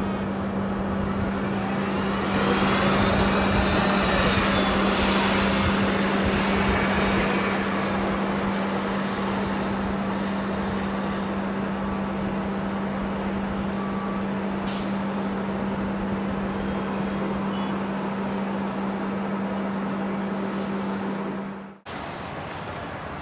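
Airbus A380-861's Engine Alliance GP7200 jet engines running, a steady hum with a whine that bends in pitch, growing louder about two seconds in. The sound cuts off suddenly near the end.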